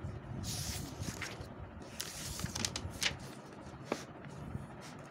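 Paper rustling as a softcover workbook is opened and its pages turned: a brushing hiss, then a few short taps and clicks of paper and hand on the page.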